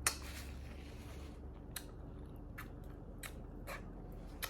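Biting into elote, Mexican corn on the cob, and chewing close to the microphone. A sharp bite at the start runs into a brief tearing, crunchy noise, followed by a few separate wet mouth clicks while chewing.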